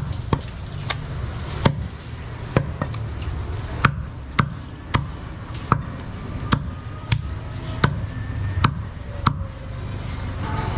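Butcher's cleaver chopping a goat leg on a wooden stump block: about fifteen sharp chops through meat and bone, roughly one every half second to second, stopping near the end.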